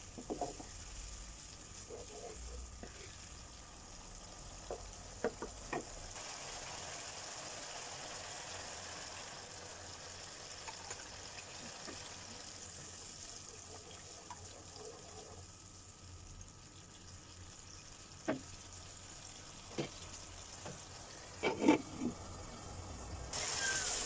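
Onion-tomato masala sizzling in oil in a non-stick frying pan, with a cup of water poured in. A wooden spatula stirs it and knocks against the pan a few times, loudest near the end.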